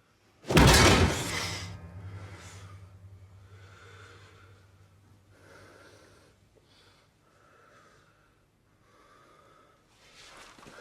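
A loud sudden blow or thud about half a second in, with a low hum dying away after it, then a person breathing hard in a string of separate breaths and gasps.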